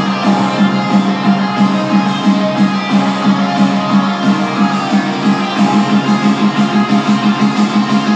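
Music with strummed guitar over a quick, even pulse, played at full volume through a small 5-watt Landmark Aura Bluetooth party speaker, with very little deep bass.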